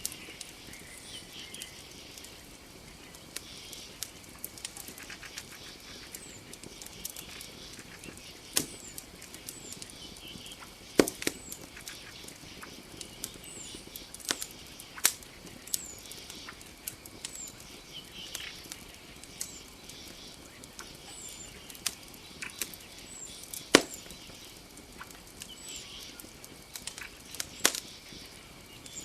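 Campfire crackling, with irregular sharp pops, a few much louder than the rest. Under it runs a steady high drone of night insects, with short high chirps repeating every second or two.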